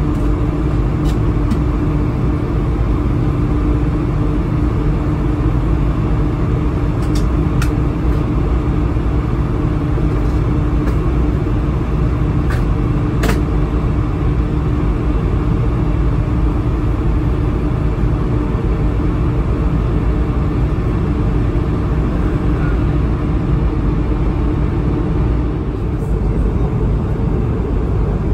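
Cabin noise inside an Airbus A220-300 in flight: the steady roar of its Pratt & Whitney PW1500G geared turbofan engines and the airflow, with a steady hum that fades out near the end. A few faint clicks stand out.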